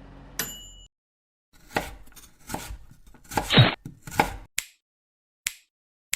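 A knife chopping food on a cutting board: a run of uneven cutting strokes, then a few single sharp knocks near the end.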